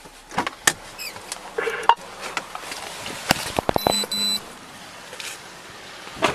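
A patrol car's door being opened and the driver getting out: a run of clicks, knocks and rubbing on a chest-worn body camera, with a short electronic beep a little after the door opens, about four seconds in, and a sharp knock near the end.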